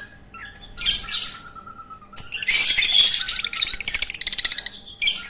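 Fischer's lovebirds calling with harsh, shrill squawks: a short call about a second in, then a longer run of chattering from about two seconds in that breaks into a fast, buzzy stutter, and a brief call near the end.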